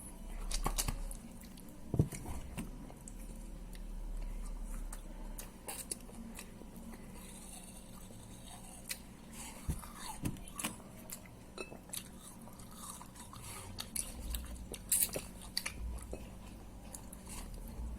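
Close-up chewing and biting of crunchy food, eaten with the mouth open so the crunching is heard, with scattered crisp clicks and crackles.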